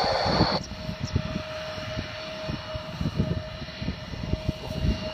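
Jet airliner's engines running on the runway, heard across the airfield as a steady whine over a broad rush. Wind buffets the microphone throughout, and a brief rustling noise comes at the very start.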